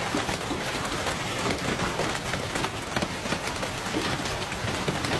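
Hailstones pelting cars in an intense hailstorm: a dense, unbroken clatter of hits on car bodies and windshields.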